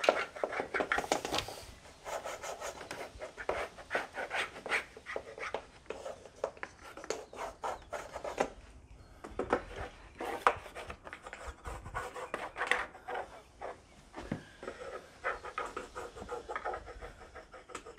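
Wax rubbed in repeated short strokes along the sides and back of a single-hung window's sash channel, with a brief pause about nine seconds in. The wax lubricates the channel so the sash slides with less resistance.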